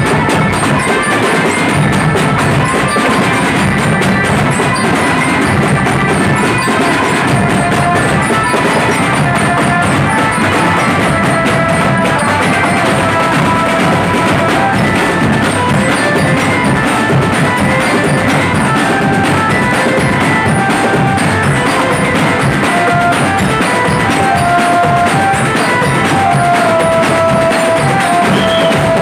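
An Indonesian drum band playing: dense, continuous drumming on massed drums including bass drums, with a melody of held notes played over it.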